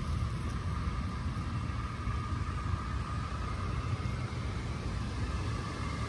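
Steady low rumble with a faint, even hum above it, unchanging throughout.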